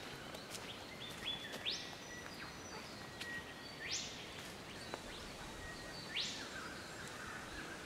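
A bird calling three times, a little over two seconds apart. Each call is a steady whistled note followed by a quick note sweeping sharply upward.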